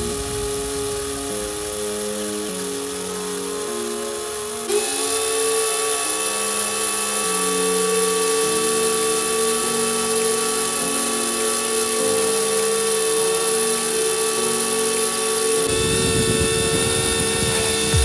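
Small DC-motor pump of a homemade mini air conditioner running with a steady, high-pitched whine; the whine gets louder and brighter about five seconds in. Near the end a low rumbling noise joins it.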